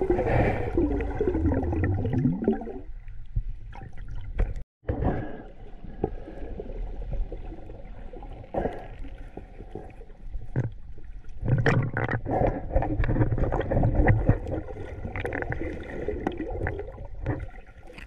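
Muffled underwater sound picked up by a camera below the surface: water surging and gurgling, with scattered clicks and crackles. The sound cuts out for a moment about five seconds in.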